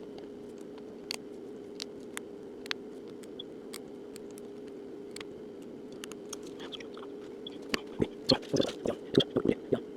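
Small sharp clicks and taps of a phone being handled during reassembly, sparse at first and then a quick run of louder clicks and snaps in the last two seconds, over a steady low hum.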